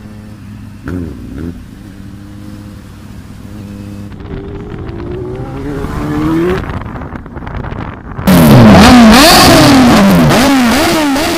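Inline-four superbike engines (Kawasaki Z900 and Suzuki Hayabusa) running steadily, with two short throttle blips about a second in and then a rising note as they accelerate. From about eight seconds in comes a much louder passage of rapid, repeated free-revving, each rev rising and falling quickly, which fades away near the end.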